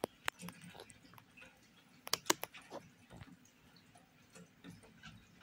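A crochet hook working chunky t-shirt yarn through stitches: soft rustles with scattered small clicks and ticks, the loudest cluster about two seconds in.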